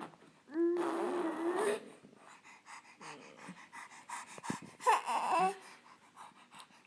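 A baby fussing and whining in protest while being fed, two voiced cries about four seconds apart with smacking and breathing between.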